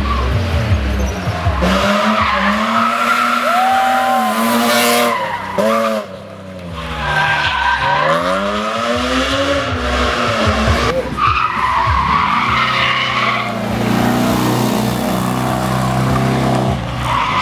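Racing car engines revving hard through gear changes, the pitch rising and dropping again and again, with tyres squealing. The sound breaks off sharply about six seconds in and picks up again with another car.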